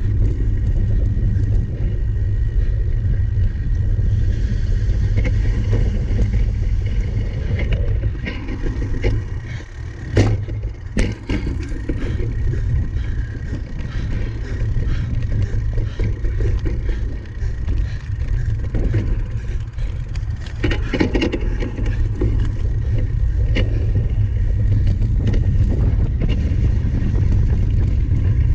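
Cyclocross bike being ridden over rough ground: a steady low rumble with scrapes and rattles, and two sharp clicks about ten seconds in.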